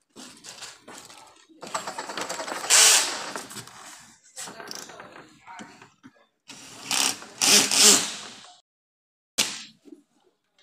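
Plastic packing sheets and wrapping rustling and crinkling as they are handled, in two longer bursts with short quieter stretches between.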